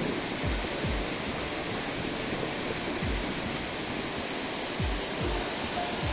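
Steady rushing roar of a waterfall, with background music laid over it: deep bass kicks that drop in pitch land every second or so, with faint high ticks.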